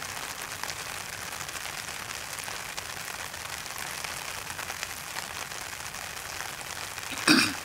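Steady rain falling, an even hiss with no other steady sound. Near the end a single brief, loud sound cuts in for a fraction of a second.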